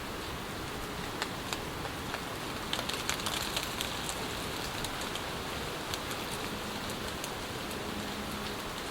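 Steady rain falling in a forest, an even hiss with many separate drops ticking close by, heaviest about three seconds in.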